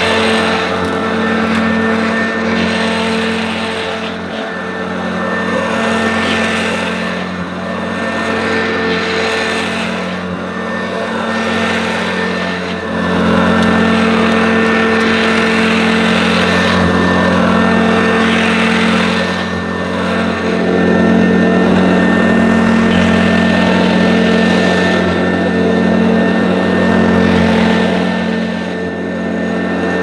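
1980s Electrolux Z1030 Lite Special upright vacuum cleaner, with its 270-watt dirty-fan motor, running while pushed back and forth over carpet, rising and falling in loudness with each stroke. It runs a little squeaky and rough, which the owner thinks probably calls for oiling the motor bearings.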